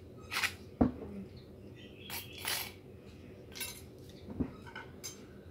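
A metal spoon clinking and scraping against a small dish of sambal: one sharp clink about a second in and another about four seconds later, with short scraping sounds between.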